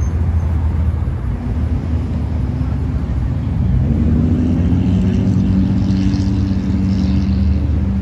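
Motor vehicle and road traffic noise: a steady low rumble, with a steady engine hum growing in about three to four seconds in.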